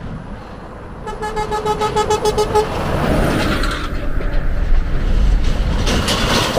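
A vehicle horn sounds in a quick run of short toots for about a second and a half. Then a heavy truck rumbles past, growing louder.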